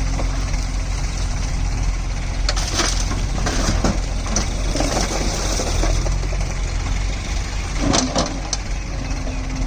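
Mahindra Arjun 555 tractor's diesel engine running steadily, with a few sharp clatters about three to four seconds in and again near eight seconds.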